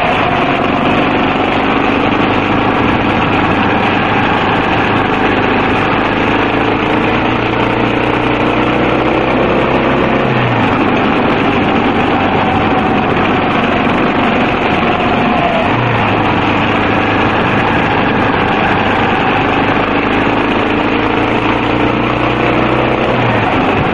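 Yamaha XT250 single-cylinder four-stroke motorcycle engine running under way, nearly buried in heavy wind noise on the microphone. The engine note climbs slowly and drops back about ten seconds in and again near the end.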